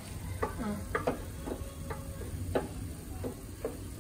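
A cooking spoon knocking and scraping against a pan as food is stirred, about a dozen irregular clicks over a low steady background.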